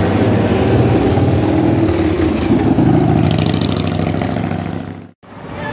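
Motorcycle engine running and accelerating past, mixed with street traffic noise. The sound fades and cuts off suddenly about five seconds in.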